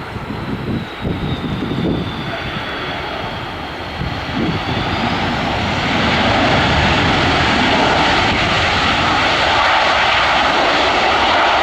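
Airbus A330-300 airliner's jet engines on landing: a high whine that slides down, then rises about four seconds in as the engine noise grows louder and stays loud.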